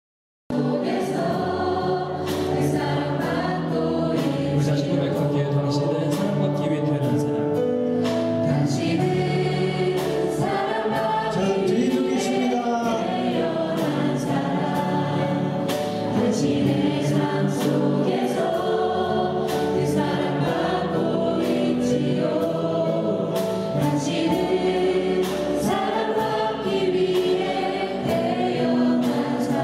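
A group of people singing a Korean gospel worship song together over music accompaniment, cutting in after a brief silent gap at the very start.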